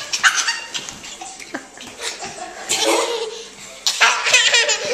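A toddler laughing hard in repeated bursts, the longest and loudest run about four seconds in.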